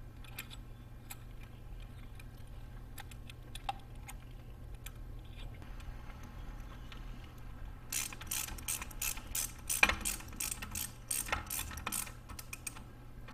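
Hand socket ratchet clicking in quick runs for about five seconds in the second half, as the camshaft retaining plate bolt is run down. Before that, scattered light clicks of small metal parts being handled.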